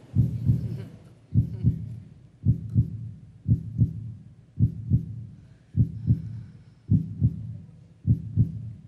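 Heartbeat sound effect used as a suspense cue: low double thumps in lub-dub pairs, one pair about every second, at a steady pace.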